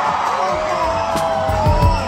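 A crowd cheering and whooping over music, with long drawn-out shouts; a heavy beat comes in about one and a half seconds in.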